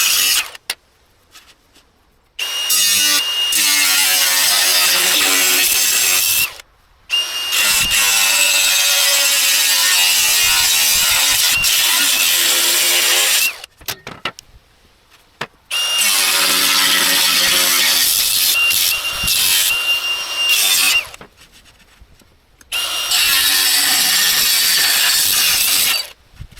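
A power tool working on steel runs in four long stretches, each stopping abruptly into a short gap of quiet.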